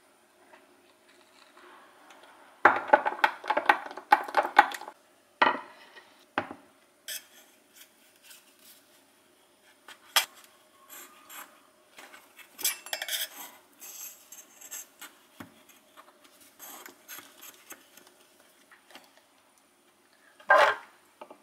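Kitchen handling sounds: clatter and knocks of a wooden cutting board and a metal loaf tin on a marble counter, and a knife scraping around the inside of the tin to loosen a baked banana oat bread. A dense burst of clatter comes a few seconds in and a single loud knock near the end.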